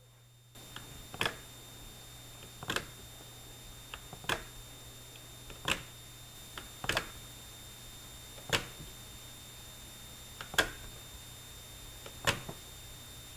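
About eight light, sharp clicks, one every second and a half or so, over a steady low hum.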